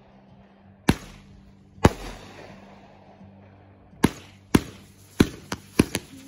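Aerial fireworks going off: two sharp bangs about a second apart, then after a pause a quick run of about six bangs, each trailing off in an echo.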